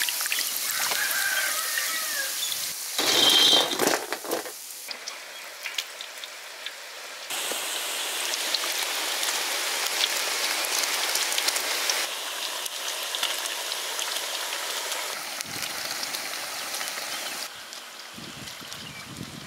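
Battered bitter gourd pakodas deep-frying in hot oil: a steady sizzling hiss, with a louder burst of noise about three seconds in.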